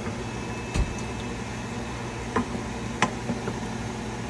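A wooden spoon stirring stir fry in a stainless steel pan, knocking against the pan a few times in short sharp taps, over the steady hum of a range hood fan.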